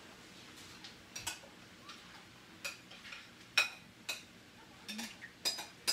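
Light, scattered clicks and clinks of metal kitchen utensils against cookware, a sharp tick roughly every second.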